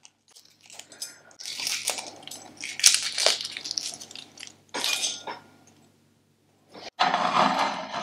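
Eggshell crackling and tearing away as a cooked soft-boiled egg is peeled by hand, with bits of shell clinking onto a ceramic plate. The scratchy crackle comes in bursts for a few seconds, stops, and comes back briefly near the end.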